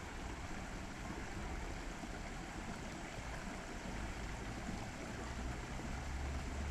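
Steady rush of flowing creek water, with a low rumble that grows louder near the end.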